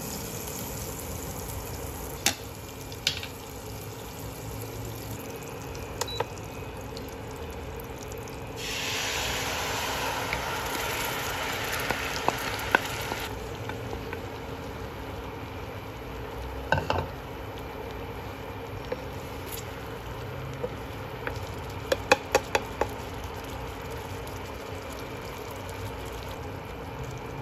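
Butter sizzling in a nonstick frying pan, stirred with a wooden spatula that taps and scrapes against the pan now and then. About nine seconds in a dark sauce goes into the hot butter and the sizzle gets louder for about four seconds, then settles to a steady bubbling with a few quick taps of the spatula.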